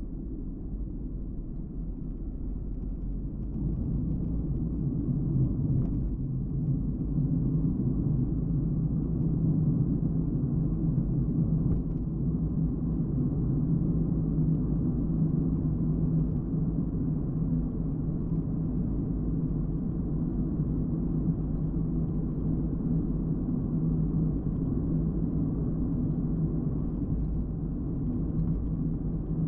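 A car driving on a road: a steady low rumble of engine and tyre noise, getting louder about four seconds in.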